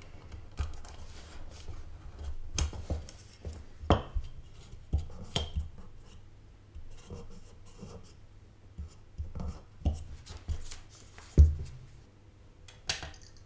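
Hands handling a Sunon 80 mm plastic case fan on a bench: irregular rubbing, tapping and knocking of the plastic frame and its wires, with a sharper, louder knock near the end as the fan is set down on its side.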